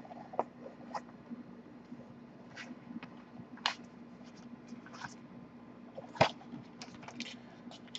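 Scattered light clicks and taps from laserdisc jackets being handled and set down on a table, irregular, with the sharpest tap about six seconds in, over a faint steady hum.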